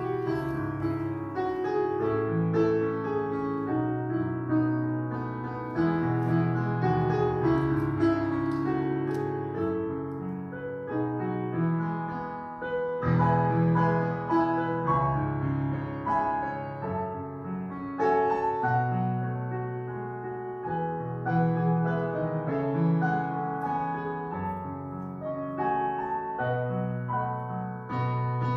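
Piano music: slow chords changing every second or so, with a melody above them.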